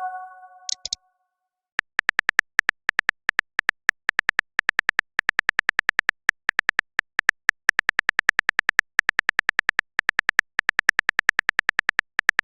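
Typing sound effect: a long run of short, high-pitched clicks, several a second, as a chat message is typed out. It is preceded by the fading ring of a message-notification chime.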